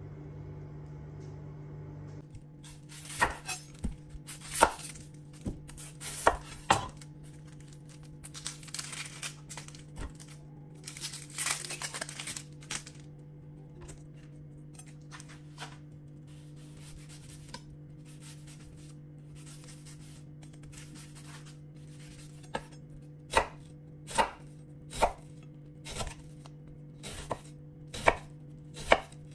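Chef's knife cutting a red onion on a wooden cutting board: a few sharp knife strikes on the board, then a run of quicker, lighter slicing cuts, a lull with only light taps, and steady dicing strikes about one a second near the end. A steady low hum runs underneath.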